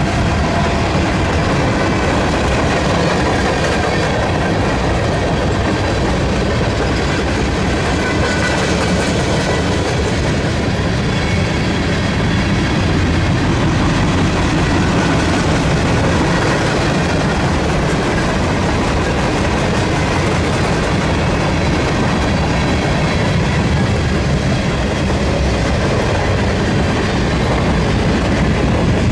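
Freight cars of a long mixed freight train rolling past close by at speed. It is a loud, steady rumble with the clatter of steel wheels on the rails.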